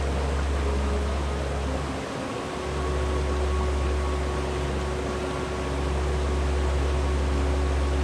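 Steady rush of a mountain stream's flowing water, with a low rumble that dips briefly about two seconds in.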